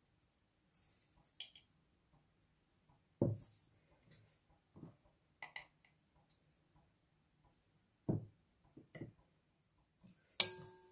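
Metal spoon knocking against a glass mixing bowl while chilli flakes and chilli powder are spooned in: a few soft knocks and small clicks, then near the end a sharp clink that leaves the glass ringing.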